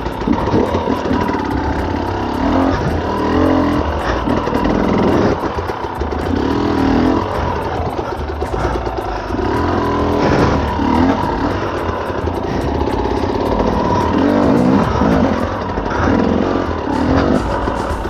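Off-road dirt bike engine revving on and off, its pitch rising and falling in repeated bursts as the throttle is worked.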